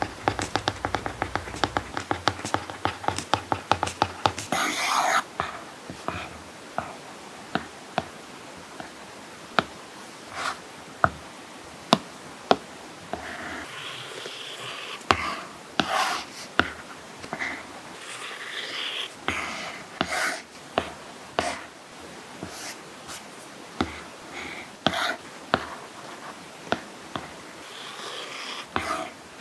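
Apple Pencil tip on an iPad screen fitted with a matte paper-like screen protector: scattered sharp taps and several short scratchy drawing strokes. It opens with a quick run of small clicks over the first few seconds.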